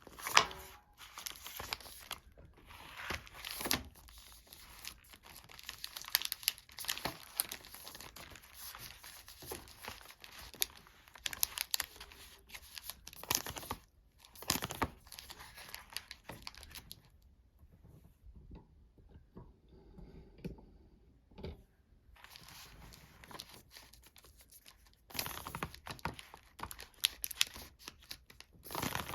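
Sweet and chocolate wrappers being torn open and crinkled, in quick runs of crackling, with a quieter stretch of a few soft clicks a little past the middle.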